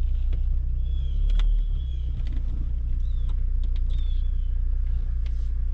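Vehicle engine running at low speed while reversing, a steady low rumble that swells briefly about a second and a half in. The driver finds the engine's sound odd and wants to check whether a leaking PCV valve is behind it.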